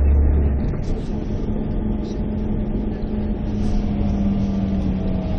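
Steady road and engine noise heard from inside a moving vehicle, with a drone that holds one pitch; a deep low hum drops away about half a second in.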